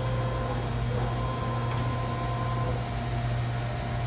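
Chevalier FSG-1632TXII surface grinder running under power with a steady low hum while its Y-axis drive moves the table. A whine from the drive shifts about half a second in and drops away a little past halfway.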